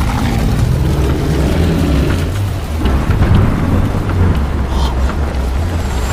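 Storm sound effects: a loud, continuous low rumble like rolling thunder under a rushing noise of wind and rain.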